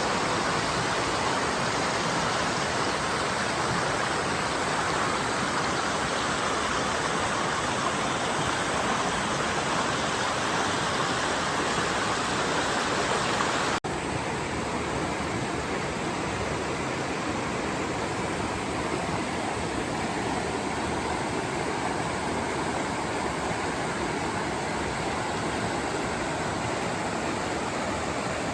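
Valley stream water rushing steadily. About 14 seconds in the sound cuts abruptly to a slightly quieter, duller rush of water.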